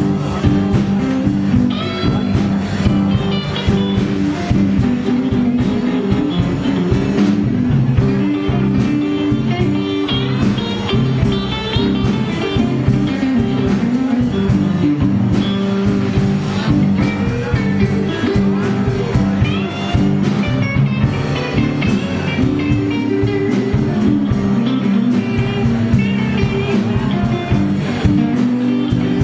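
A live blues band playing: electric guitars, bass guitar, keyboards and drums, with a lead guitar line of bent notes over the band.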